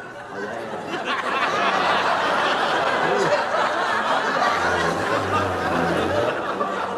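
Studio audience laughing, swelling about a second in and holding steady.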